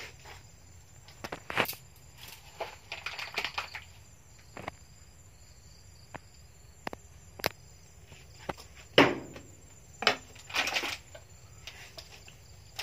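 Irregular rustling, scraping and sharp knocks from things being handled and bumped among wooden roof rafters, sacks and cloth, with the loudest knock about nine seconds in.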